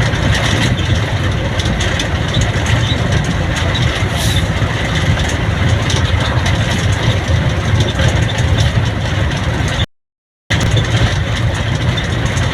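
Steady vehicle engine noise mixed with road and wind noise while travelling along a road, cutting out completely for about half a second near the end.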